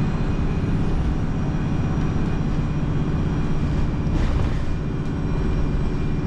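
Steady drone of a moving bus, engine and road noise as heard from inside the passenger cabin, with a faint steady high whine.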